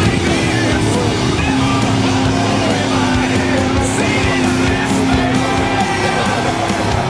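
Music with singing and guitar: a singer holds one long note through the middle.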